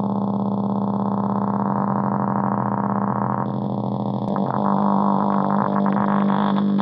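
Buzzing electronic drone from a К176ЛА7 (CD4011-type CMOS NAND gate) chip wired as a tone generator and played by hand, run through software effects, with a fast pulsing flutter. A little past halfway the tone changes, a click sounds, and it grows louder.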